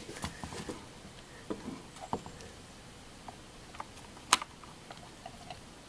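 Scattered light clicks and taps of hands handling a chainsaw's carburetor and fuel line, with one sharp click about four seconds in.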